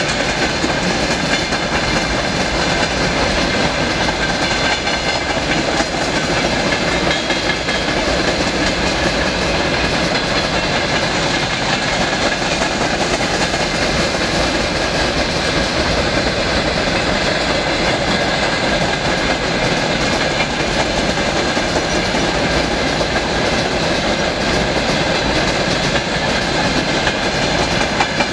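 Long freight train of open wagons rolling steadily past over a girder bridge, with a continuous rumble and clickety-clack of wheels over the rails.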